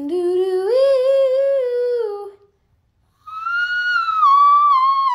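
A woman vocalising without words: a mid-range note that steps up in pitch over the first two seconds, a short pause, then a long, very high note with vibrato that slides slightly downward. This is an attempt at a whistle-register note that she calls close.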